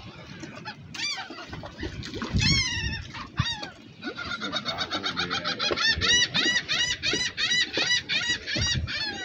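Seabirds calling: a few high, arching cries, then a fast even run of them at about three a second through the second half.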